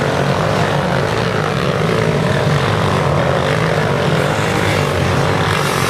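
Several racing ATV engines running together on the throttle, their overlapping engine notes wavering up and down as the riders work through a muddy trail.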